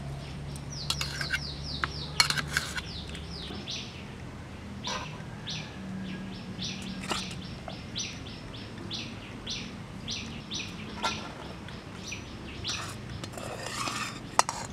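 Small birds chirping in quick runs of short, high, falling notes, with a few sharp clicks between them, the loudest about two seconds in.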